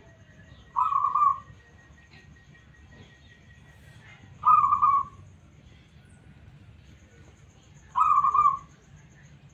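Zebra dove (perkutut) cooing: three short coos, each about half a second long, spaced about three and a half seconds apart.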